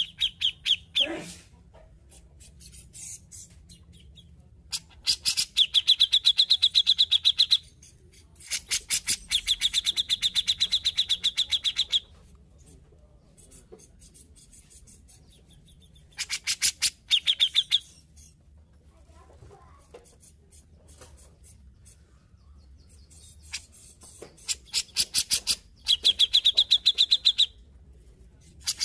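Grey-cheeked bulbul (cucak jenggot) singing: five loud bouts of fast, repeated chattering notes, each one to three seconds long, with softer calls in the pauses between.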